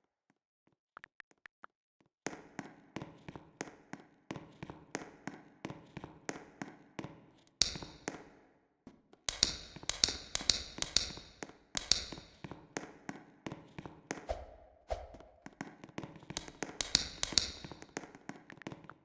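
Rapid, regular tapping, about four taps a second, with a few sharper, brighter clicks among them.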